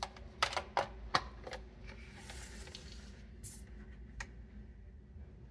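A run of about six sharp plastic clicks in the first second and a half from handling a photo printer, then a brief soft hiss and one more click. The printer itself stays silent: it won't turn on.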